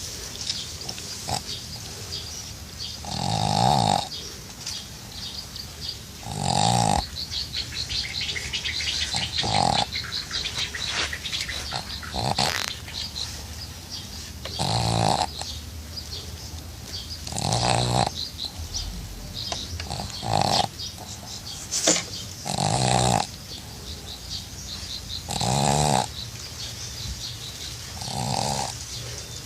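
Dog snoring, a rough snore about every three seconds.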